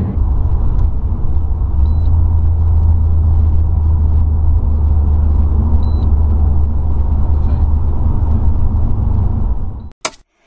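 Audi S5 cabin at road speed: a steady low engine and road drone, with two faint short high beeps about four seconds apart. The sound cuts off abruptly near the end.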